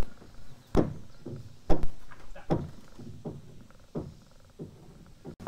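Hammer blows on wood, a steady run of sharp knocks a little more than one a second: nailing up wooden roof purlins.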